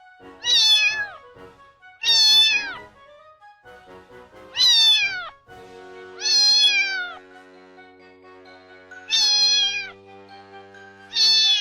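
A cat meowing six times, each a high meow of under a second whose pitch falls at the end, over soft background music.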